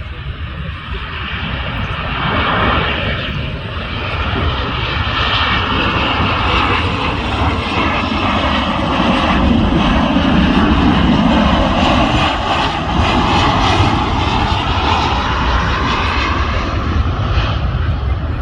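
Jet airliner passing close, its engine roar building to its loudest around the middle and easing slightly near the end, with a faint steady whine above it.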